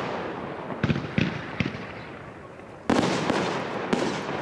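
Aerial firework shells bursting: a few lighter bangs about a second in, then a loud burst near three seconds followed by two more, each trailing off in a long echo.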